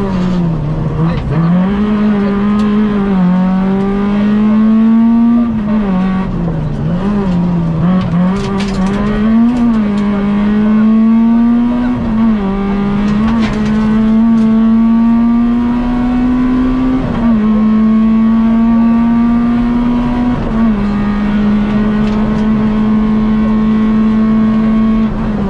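Peugeot 106 XSi rally car's four-cylinder engine heard from inside the cabin at racing pace, revving up and down as the driver lifts and accelerates for corners. Later it pulls hard in long climbs in pitch, with sudden drops at upshifts about 17 and 21 seconds in.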